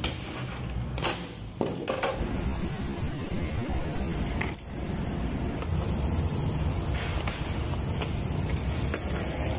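BMX bike ridden on an asphalt street: a steady low rumble of tyres rolling and air on the phone's microphone. A few sharp knocks come through, one about four and a half seconds in as the bike lands from a hop.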